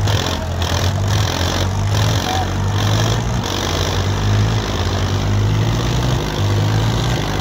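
Tractor diesel engines labouring under full load in a tug-of-war pull, a steady heavy low drone, with the front wheels of the pulling tractor lifted off the ground.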